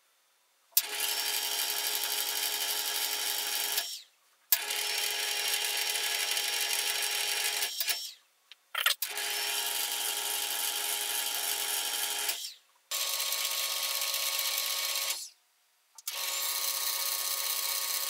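Rivett lathe running under power in five bursts of about three seconds each, switched on and off between threading passes as a 1.25 mm pitch metric thread is single-point cut in mild steel. Each run starts and stops abruptly, a click marking some of the starts.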